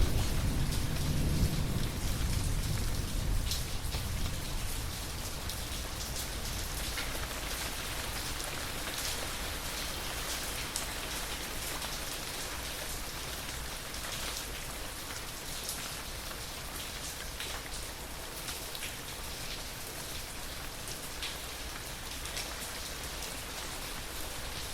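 Steady rain falling, with the sharp ticks of single drops striking close by. A low thunder rumble dies away in the first few seconds.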